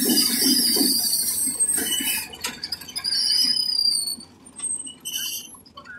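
A cotton-processing machine with rollers and a drum, running with a dense mechanical rattle that falls away about two seconds in, leaving high metallic squeals.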